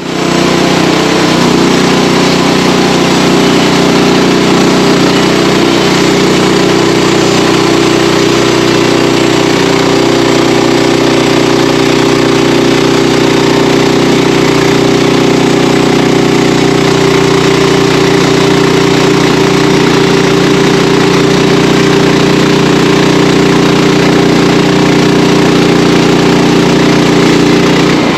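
Sawmill engine running steadily at speed while the mill saws into a wild cherry log.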